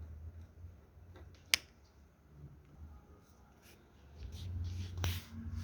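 Light ticks and clicks of a precision screwdriver and small screws being undone from a Samsung Galaxy Note 9's internal frame, with one sharp click about a second and a half in and another near the end, over a low handling rumble.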